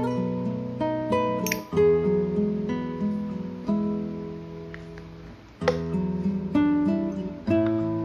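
Acoustic guitar music, with plucked notes and strummed chords following one another at an easy pace.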